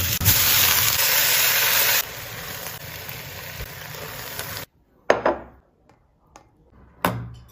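Food sizzling in hot oil. The sizzle is loud, drops to a quieter level about two seconds in and cuts off abruptly after about four and a half seconds. A few short, sharp knocks follow.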